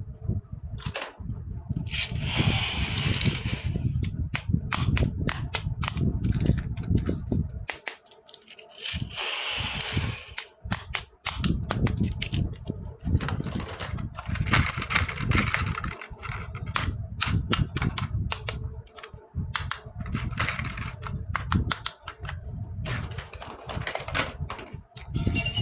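Close-miked handling of plastic toy pieces and their packaging: a dense run of sharp clicks and taps with a low handling rumble, broken by a few short bursts of crinkling plastic wrap.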